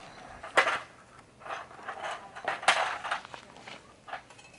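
Hand bow saw cutting a branch in short, uneven strokes, after a sharp knock about half a second in.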